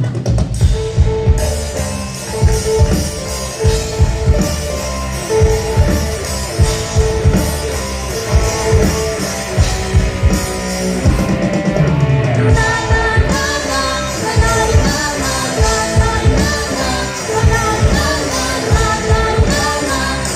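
A live rock band playing the instrumental intro of a song: a drum kit beating steadily under guitar and a sustained melody line. More high melody joins about two-thirds of the way through.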